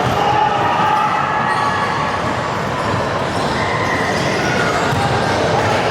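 Basketball being dribbled on a gym court, with a steady background of spectators' voices.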